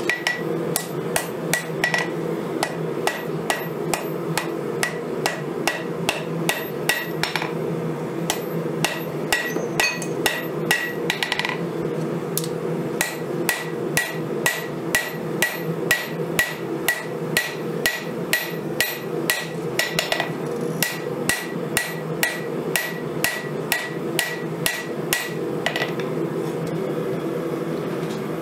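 Hand-hammer blows on red-hot knife steel on a 132-pound Vevor steel anvil, about two a second in runs with short pauses, each blow with a brief ring. The hammering stops a couple of seconds before the end, over a steady low hum.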